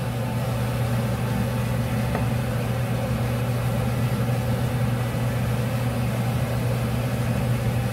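Steady low hum of a running kitchen appliance, with one faint click about two seconds in.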